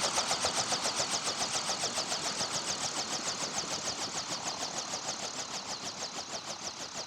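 Helicopter rotor blades winding down just after engine shutdown: an even rhythmic swish, about seven beats a second, slowly easing and fading.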